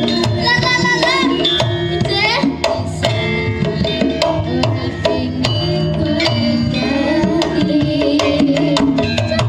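Live Javanese campursari music: a gamelan ensemble playing a lively piece, with a kendang hand drum beating a busy pattern over sustained pitched notes. A few high sliding notes sound in the first couple of seconds.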